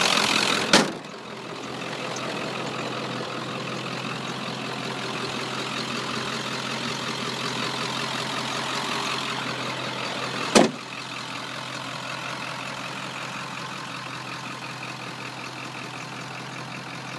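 A 1996 Ford F250's 7.3-litre Power Stroke turbo-diesel V8 idling steadily through a straight-pipe exhaust. There are two sharp knocks, one about a second in and one about ten seconds in. After the first knock the engine sounds quieter.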